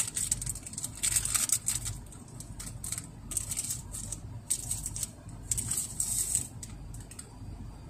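Plastic ice-pop wrapper crinkling in irregular bursts as it is pulled open and peeled off a Garigari-kun ice pop.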